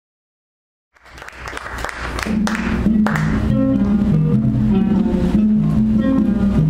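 Silence for about a second, then audience applause swells in as music begins, with a bass line stepping from note to note under it.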